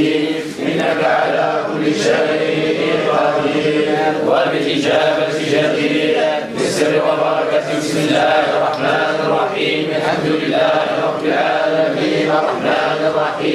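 A group of men chanting together in Arabic, slow drawn-out phrases held in near unison, with brief breaks for breath about half a second in and again just past the middle.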